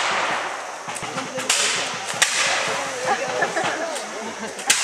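Scattered musket shots: sharp single cracks, the loudest about a second and a half in, just after two seconds and near the end, over men shouting.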